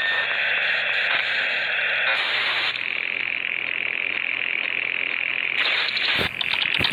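Harsh, glitchy electronic static from a hacker teaser's distorted soundtrack, with a change in its texture a couple of seconds in and two sharp clicks near the end.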